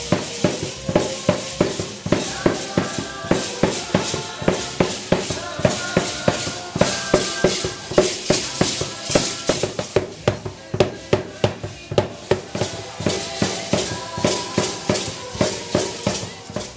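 Live procession music: a drum beating a fast, steady rhythm of several strokes a second, with a stepping melody played over it.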